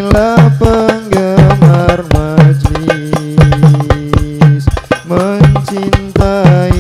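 Sholawat, Arabic devotional songs praising the Prophet, sung by male voices through microphones over hand drums. The drums keep a steady beat of low strokes that fall in pitch.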